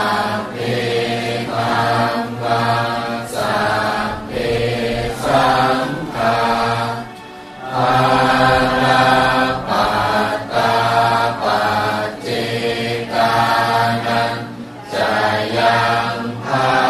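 A Thai Buddhist monk chanting Pali verses in an intoned voice, phrase after phrase, with a short breath pause about seven seconds in.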